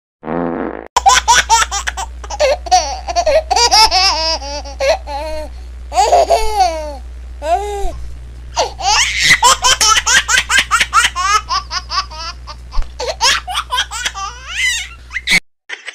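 Dubbed-in laughter sound effect: high-pitched, child-like laughing in quick runs of short bursts, over a steady low hum.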